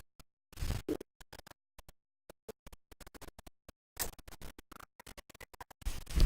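Fabric rustling and scratchy scuffs with scattered small clicks and bumps as clothes are handled close to the microphone, the louder scuffs coming about half a second in, at about four seconds and near the end.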